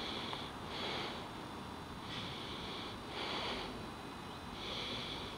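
A person breathing close to the microphone: a hissing in-and-out pair roughly every two and a half seconds.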